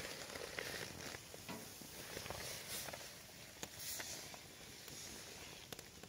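Faint sizzling with scattered small crackles and clicks as raw spice-rubbed ribs are laid onto a round wire grill grate over glowing wood embers.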